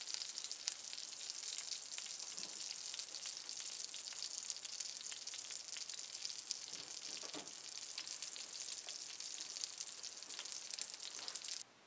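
Pork longganisa sausages frying in their own rendered fat and a little oil in a nonstick pan: a steady sizzle thick with small pops. The water has cooked off and the sausages are browning. The sizzle cuts off suddenly near the end.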